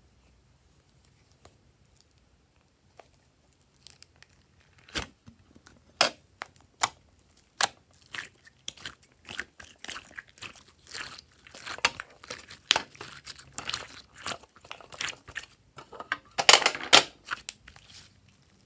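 Thick slime being scooped out of a clear plastic compartment case and squeezed and kneaded by hand, making sticky squelching and crackling pops. A few separate sharp clicks come about five to eight seconds in, and the densest, loudest squelching is near the end.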